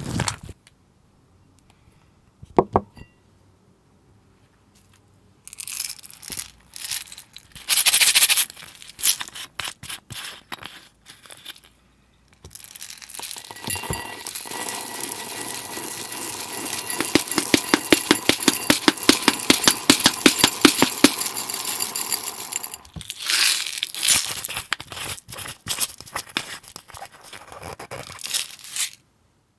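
Slime being worked by hand, with bouts of sticky crackling separated by short pauses and a long, dense run of fine crackles through the middle.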